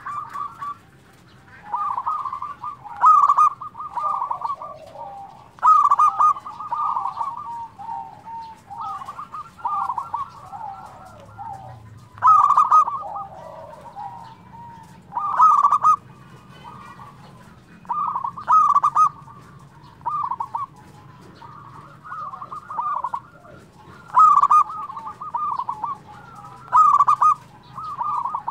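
Zebra dove (perkutut) singing: a rolling cooing call near 1 kHz, repeated every two to three seconds, about a dozen times, with thin high chirps over some calls.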